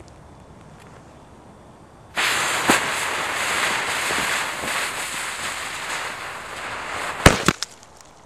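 A visco fuse catches about two seconds in and hisses steadily for about five seconds. Then a homemade firecracker packed in a snowball goes off near the end with a loud bang, followed at once by a second sharp crack.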